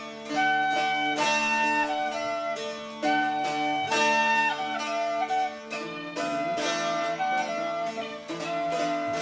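A small ensemble of bouzoukis and tin whistles playing a slow Irish folk melody: the bouzoukis strum a chord every second or two under held melody notes.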